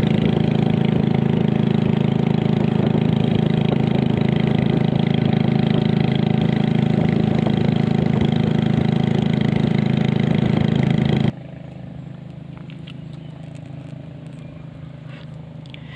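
Small wooden motorboat's engine running steadily under way, a loud even drone. It cuts off suddenly about eleven seconds in, leaving a much quieter outdoor background.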